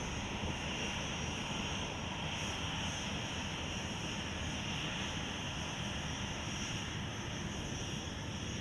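Boeing 737 jetliner's turbofan engines running at low power while it taxis: a steady high-pitched whine over a low rumble.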